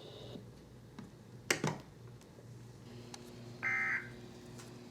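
A sharp click about a second and a half in, then a short electronic beep from a weather alert radio near the end, over a faint steady hum.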